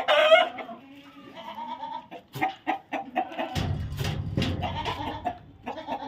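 Goats bleating, Sojat × Patira × Hyderabadi crossbreds, with a loud bleat at the start and shorter calls after. A low rumble runs through the middle.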